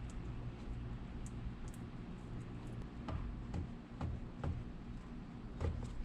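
A series of light, irregular clicks and taps from handwork over a steady low hum.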